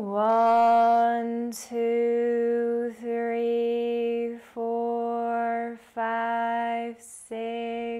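A woman's voice counting slowly in a steady sung monotone. Each number is drawn out for about a second, with short breaks between, pacing the eight-count exhale of a 4-7-8 breath.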